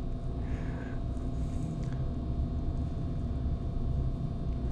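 Room tone: a steady low rumble with a faint constant hum.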